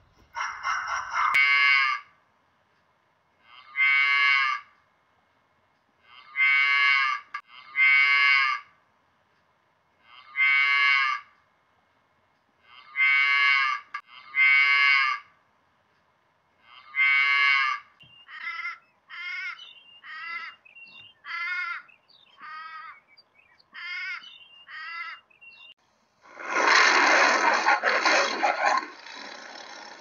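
A sequence of animal calls: drawn-out calls of about a second each, repeated every one to three seconds, then a run of shorter, quicker calls, and near the end a loud, rough call lasting several seconds.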